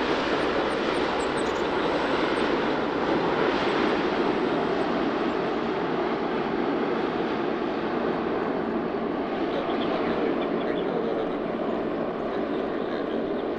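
Jet airliner on arrival, its engines and airframe giving a steady rushing noise that slowly fades.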